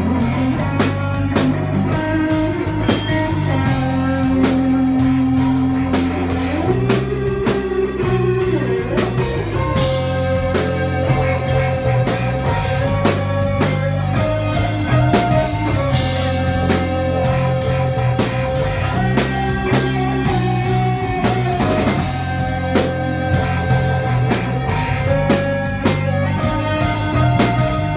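Live band playing amplified rock-style jam music: electric guitar and keyboards hold long notes that shift every few seconds, over a steady bass line and a drum kit keeping a regular beat.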